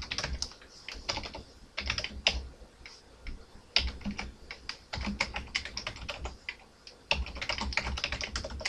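Typing on a computer keyboard: quick runs of key clicks broken by short pauses, the longest pause about three seconds in and another about seven seconds in.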